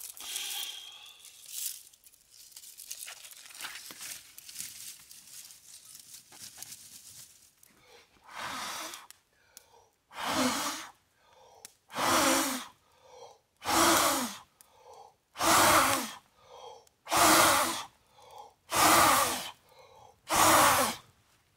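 A man blowing hard into the smouldering embers of a brush fire to coax it into flame: long, forceful puffs of breath about every two seconds, eight in all, starting about eight seconds in.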